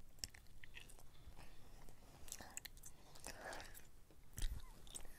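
Close-miked chewing, wet clicks and smacks of a mouth at a clip-on microphone, with one louder bump about four and a half seconds in.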